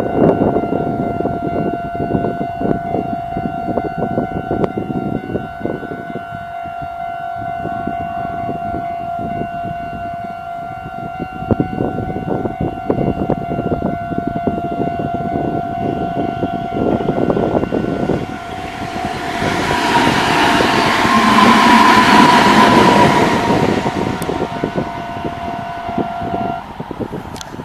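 Japanese level crossing's warning bell ringing steadily over the rumble and wheel clatter of a passing Meitetsu electric train, with a louder rushing swell about twenty seconds in. The bell cuts off shortly before the end as the crossing clears.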